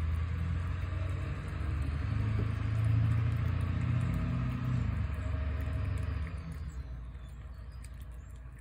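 Low rumble of a vehicle passing by. It builds to its loudest about three seconds in, then fades away after about six seconds.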